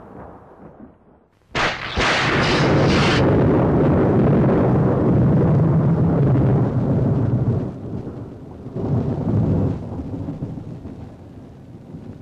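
Close thunderclap: a sudden sharp crack about a second and a half in, crackling for a second or so, then a long, low rolling rumble that swells once more and dies away.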